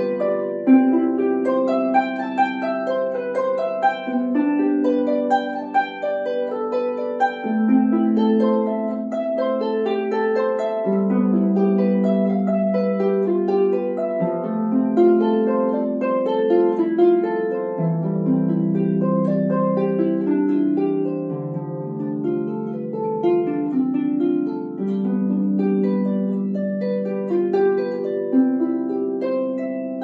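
Solo harp, plucked by hand: a steady flow of arpeggiated notes over low bass notes that change every few seconds, the strings ringing on into one another.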